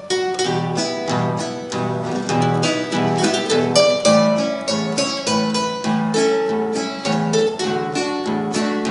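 Acoustic guitars playing an instrumental introduction: a quick run of plucked melody notes over a steady plucked bass line, with no singing.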